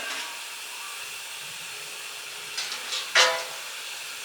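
Metal parts of a Weber Smokey Mountain smoker being set in place: a few light taps, then about three seconds in one ringing metal clank, over a steady background hiss.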